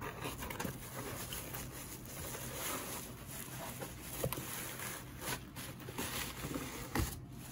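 Plastic bubble wrap crinkling and rustling, full of small crackles, as a bubble-wrapped item is pulled out of a cardboard box; it dies down about seven seconds in.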